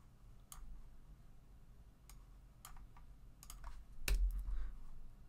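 Sparse typing on a computer keyboard: single key clicks spaced a second or so apart, a quick few together past the middle, the loudest about four seconds in.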